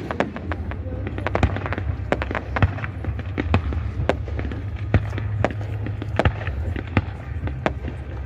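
Fireworks display: many sharp bangs and cracks going off in quick, irregular succession, several a second, over a steady low rumble.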